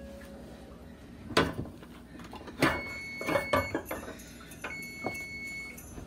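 Electric range's oven timer beeping as its countdown runs out: two long steady beeps of about a second each, a second or so apart. A sharp knock comes about a second and a half in, the loudest sound here, and another knock and some clatter come as the first beep starts.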